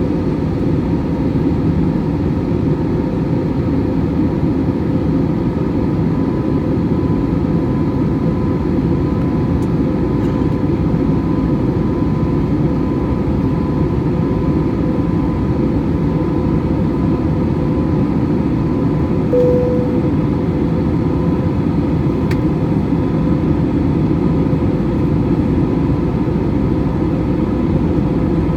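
Steady jet engine and airflow noise heard inside an airliner cabin in flight, even and unchanging, with a faint steady whine over it. A short tone sounds briefly about two-thirds of the way through.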